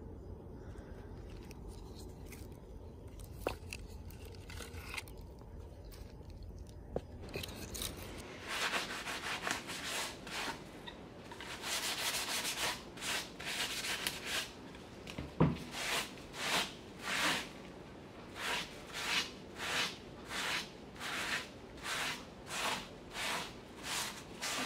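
A sponge scrubbing the woody base of a dirty palm frond, rubbing back and forth in regular rasping strokes that start about a third of the way in and settle to about one and a half strokes a second. There is one sharp knock about halfway through.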